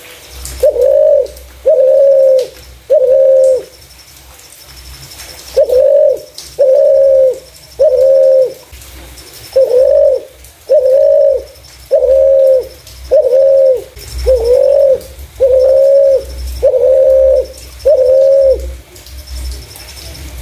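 Spotted dove (terkukur) cooing: short, even coos at about one a second, in a group of three, another group of three, then a longer run of about nine.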